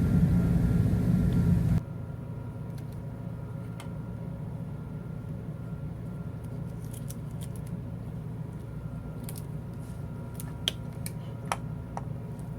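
Steady low background hum with a louder rushing noise that cuts off suddenly about two seconds in. Light clicks and ticks of small metal parts of a limit switch being handled come through the hum, sharpest near the end.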